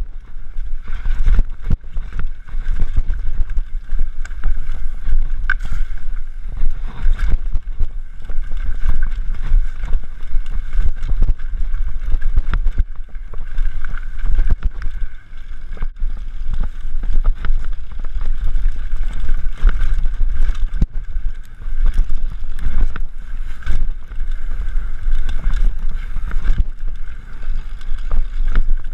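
Mountain bike ridden fast over rough trail: wind buffets the action camera's microphone with a heavy rumble, and the bike rattles and knocks with many sharp clicks over the ground.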